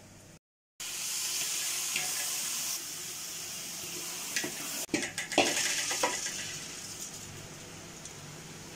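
Hot oil with fried onions sizzling as soaked rice goes into a large cooking pot, with a cluster of metal clanks, a ladle or container against the pot, about five seconds in.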